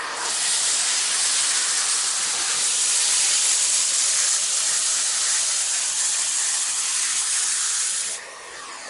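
Vacuum cleaner running: a loud, steady rush of hissing air that drops away about eight seconds in, leaving a quieter motor whine.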